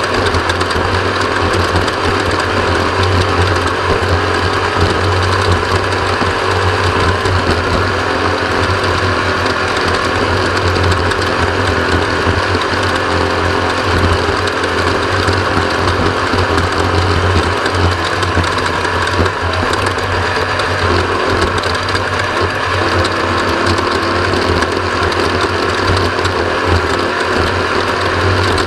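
Off-road race vehicle's engine running loud and steady with no big changes in pitch, under a dense mechanical rattle.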